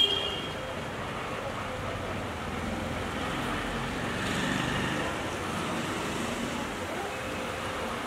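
Steady outdoor city background noise: distant road traffic heard as an even hiss and hum.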